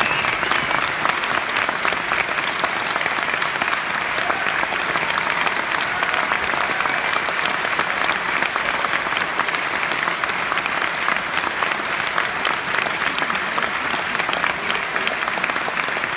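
Large theatre audience applauding: the dense, steady clapping of many hands, keeping an even level throughout.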